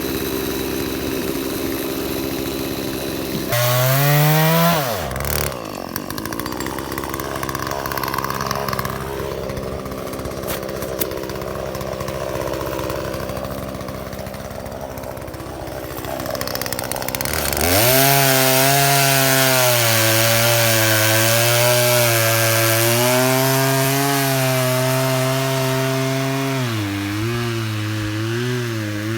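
Gas chainsaw cutting a pine log. It revs briefly about three and a half seconds in, runs quieter for a while, then is held at high speed from about eighteen seconds in, its pitch wavering near the end as the chain loads in the wood.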